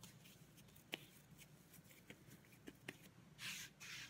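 Faint rubbing of hands spreading flour over a countertop, with a few light taps and a brief soft brushing hiss near the end.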